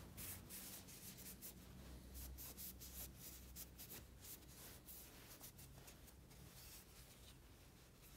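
Faint rubbing and swishing of a cloth wiping the metal parts of an old grease gun, in many quick short strokes that thin out toward the end.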